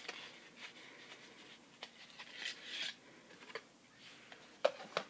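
Faint rustling, scraping and small clicks of a cosmetic product being handled and taken out of its packaging, with a brief louder rustle midway and a few sharp clicks near the end.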